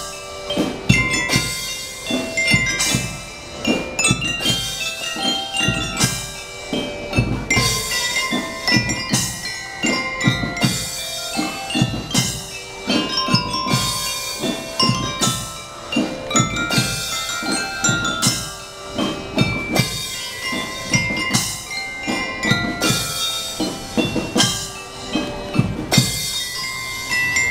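School drum and lyre band playing a march tune: a steady drumbeat under a bright melody of bell-like notes from the bell lyres.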